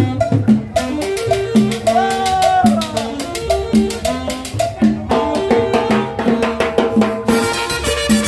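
Live salsa band playing: upright bass, congas and cymbal keep a steady groove, and a trumpet comes in near the end.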